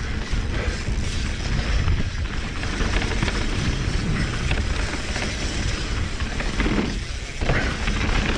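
Mountain bike rolling fast down a dirt and gravel trail: tyres crunching over the loose surface and the bike rattling over bumps, with many short clicks and knocks over a constant low rumble.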